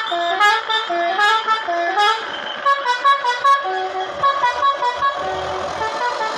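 Bus telolet horn playing a tune of short stepped notes: a rising phrase repeated three times, then a quicker run of alternating notes.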